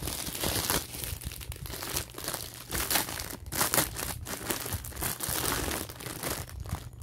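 Bubble wrap and clear plastic packaging crinkling in quick, irregular crackles as hands unwrap a bottle.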